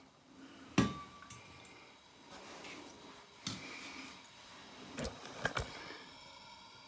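Several sharp metal clinks and knocks while solder is worked into a heated crack in a water pipe, over a faint steady hiss. The loudest knock, about a second in, rings briefly, and a quick cluster of knocks follows near the end.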